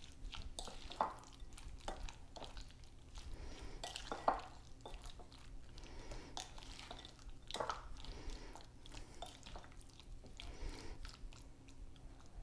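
Chicken pieces being stirred through a thick yogurt-and-spice marinade: soft, irregular wet squelching, with a couple of sharper knocks of the utensil against the bowl about one and four seconds in.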